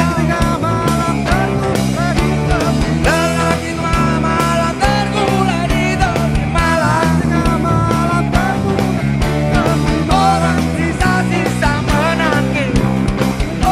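Live rock band playing on stage: drums keeping a steady beat under bass and guitars, with a wavering melody line on top.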